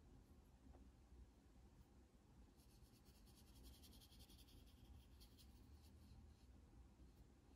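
Faint scratchy swishing of a small watercolor brush stroked across thick paper, heard over the middle few seconds against near silence.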